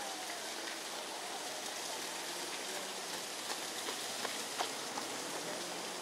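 Steady, even outdoor hiss like light rain, with a few soft ticks a little past the middle and a faint low drone coming in partway through.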